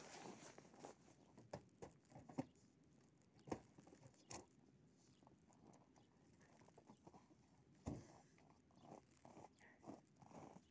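Near silence with a scattering of faint short knocks and crunches; the clearest come about three and a half and eight seconds in.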